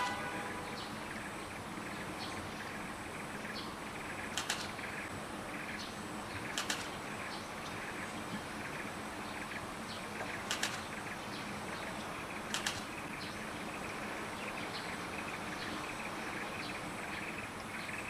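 Outdoor tropical ambience: a steady insect hum, broken four times by a short, sharp, high double chirp, about two to four seconds apart.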